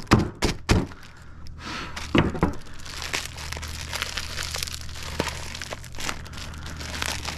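A hatchet blade knocking a few times against a wooden table as it hacks at a plastic baggie, then a long stretch of plastic wrapping crinkling as gloved hands pull it open.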